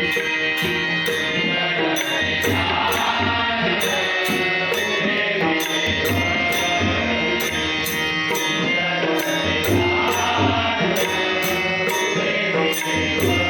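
Marathi devotional abhang with tabla and pakhawaj drums under a sung melody line. A steady beat of sharp, high metallic strokes repeats throughout.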